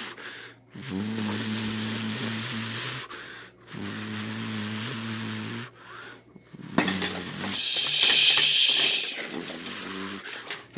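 Toy lightsaber's electronic hum, a steady low buzz that cuts out briefly twice. About two-thirds of the way through it gives way to a louder hissing stretch full of rapid clicks and clatter.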